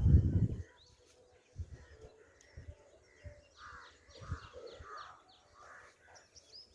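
Crows cawing several times, most of the calls a little past the middle, with small birds chirping. A low rumble fades out in the first half second, and a few brief low thumps follow.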